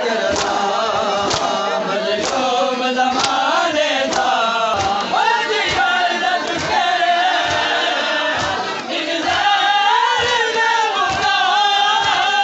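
A group of men chanting a noha, a mourning lament, in unison, with rhythmic matam chest-beating slaps about once a second.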